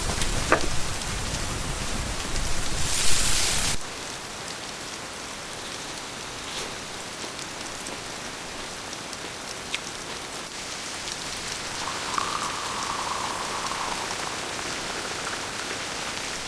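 Rain falling steadily on a surface, louder for the first few seconds, then dropping abruptly to a softer, even patter about four seconds in.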